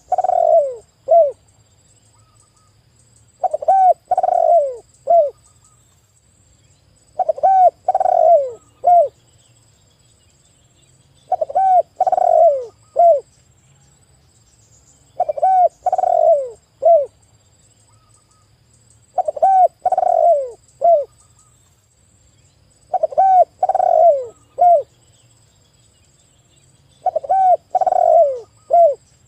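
Spotted dove (tekukur) cooing, the same phrase of several hoarse coos repeated about every four seconds, eight times, each phrase ending in a short coo set a little apart from the rest.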